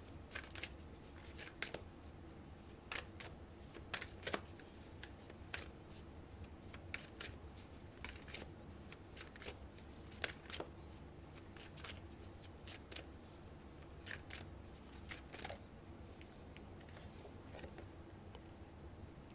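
A deck of oracle cards being shuffled by hand: soft, irregular flicks and snaps of the cards, over a faint steady low hum.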